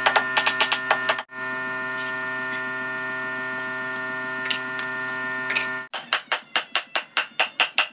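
Light hammer taps on wood during the first second, then a quick, even run of tapping near the end, about four or five taps a second, over a steady droning chord.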